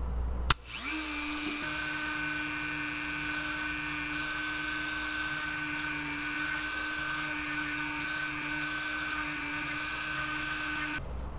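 A small handheld rotary tool clicks on about half a second in and spins up. It then runs with a steady high whine while its pointed carving bit grinds small slots into a wooden block. The whine cuts off just before the end.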